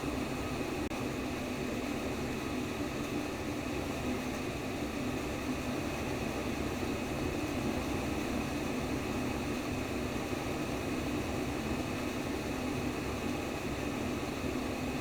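Steady womb-sound white noise: a constant low rushing hiss, heaviest in the low-mid range, with no clear beat or change.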